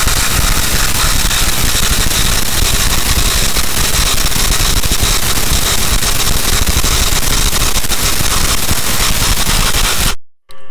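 Two cordless impact drivers, a Craftsman CMCF820 and a Skil ID573901, hammering at once as they drive long lag screws into a wooden beam under heavy load: a loud, continuous rapid rattle of impacts that cuts off suddenly about ten seconds in.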